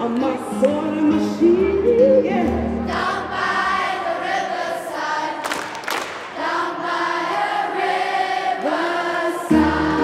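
Large children's choir singing a gospel song in unison, with a low accompaniment under the first few seconds that drops out and returns near the end.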